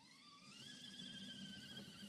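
Faint whine of a 1/10-scale RC crawler's electric motor and gear drive on an Axial SCX-10 chassis. It rises in pitch over the first half-second as throttle is applied, then holds steady.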